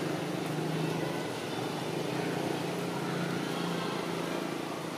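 Steady low hum of a motor running, with an even background noise.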